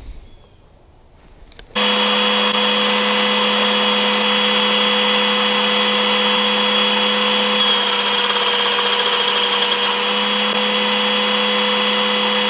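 Belt sander running steadily with a constant hum under the rush of the moving belt; it starts abruptly about two seconds in.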